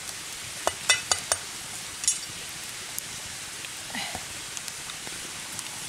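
A few sharp knocks and clicks in quick succession in the first two seconds, from a machete and stones being handled on forest ground, over a steady rain-like hiss.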